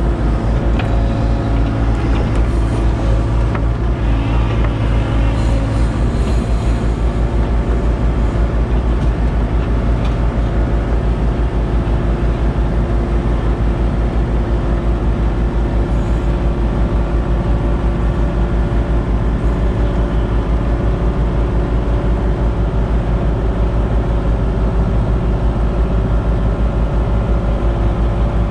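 Kubota KX057-4 mini excavator's diesel engine running steadily at working revs, heard from the operator's cab while the machine levels soil.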